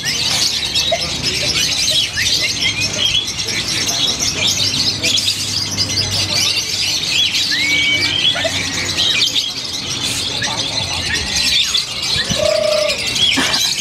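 Caged lovebird singing a long, rapid chatter of high chirps and short whistled glides (the "ngekek" song), unbroken throughout, over a low murmur of voices.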